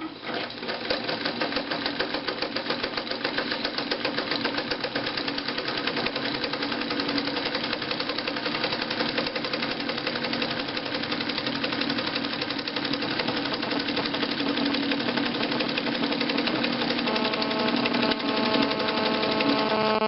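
Morse DeLuxe ZigZag sewing machine running steadily, stitching a full-width, short-length zigzag with a fast, even clatter of needle strokes. For the last few seconds a steady whine rises out of it and it runs a little louder.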